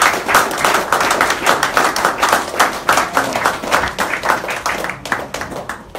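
Small audience clapping and applauding, thinning out and stopping near the end.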